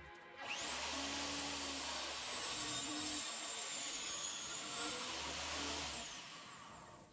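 Benchtop table saw motor whining up to speed and cutting through a wooden board, then winding down with a falling whine about six seconds in.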